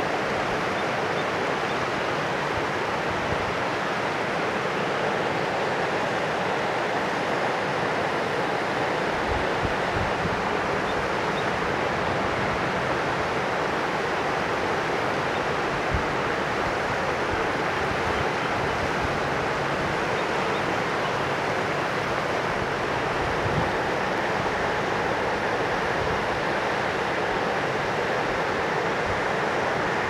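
A mountain river rushing steadily, a constant even wash of water noise, with a few brief low buffets of wind on the microphone.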